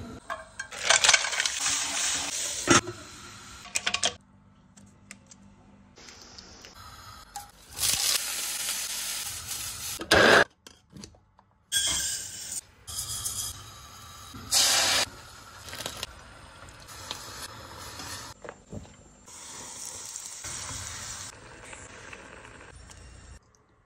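A run of short cooking sounds: sizzling in a hot steel pan, dry rice grains poured into a stainless-steel saucepan, and a spoon stirring and clinking in the pot.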